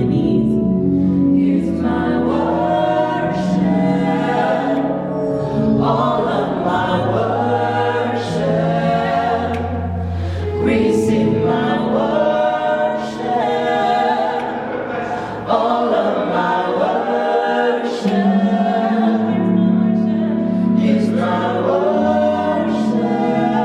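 Gospel music: a choir singing over a steady instrumental backing with sustained bass notes.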